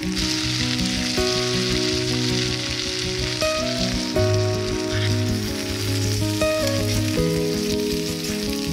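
Yakisoba noodles, bean sprouts and meat sizzling in a hot pan as they are stirred and turned with tongs, with light background music playing underneath.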